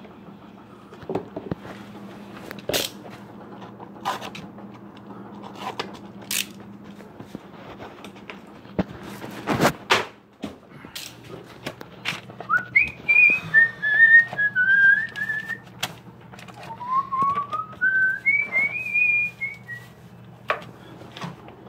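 Scattered knocks and clicks, then a person whistling a short wandering tune from just past halfway until near the end.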